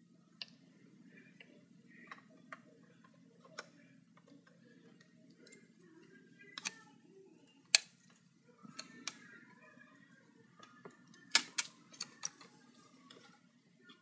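Scattered clicks and taps of a laptop-size RAM module and its plastic pull-tab being handled and pressed into an iMac's memory slot, a tight fit that takes force to seat. The sharpest click comes just before eight seconds in, and a quick run of clicks about eleven to twelve seconds in.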